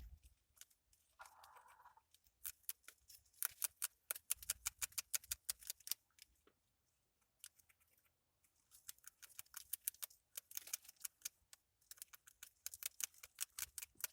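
Grasscutter (greater cane rat) chewing and gnawing its feed: quick runs of sharp, crisp clicks and crunches, stopping for about two seconds midway and then resuming.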